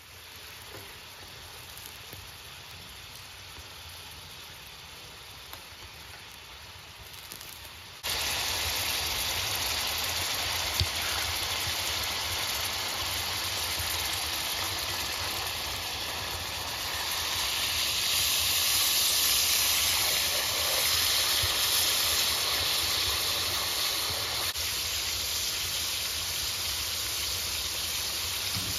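Liver and kidneys frying in a steel pan in their own juices, a steady sizzle and bubbling hiss. It is faint at first and jumps suddenly to loud about eight seconds in.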